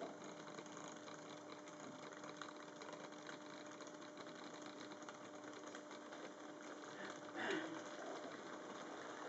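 1963 Fleischmann start-set model train running on its track: a steady electric motor hum under the fine clatter of metal wheels and couplers, with a brief louder rattle about seven and a half seconds in.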